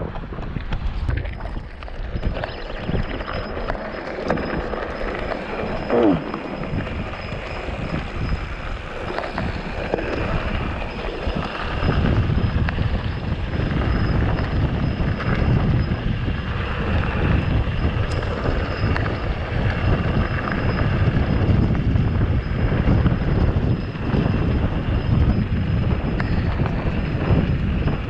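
Wind buffeting the microphone during a mountain bike ride, a steady rumbling rush that grows louder about twelve seconds in.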